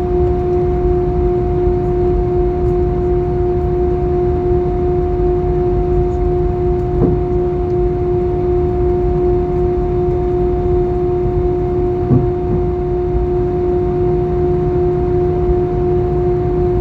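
Airbus A320 engines running steadily, heard from inside the cabin as a constant low rumble with a steady two-note hum. There are a couple of faint knocks, one about seven seconds in and one about twelve seconds in.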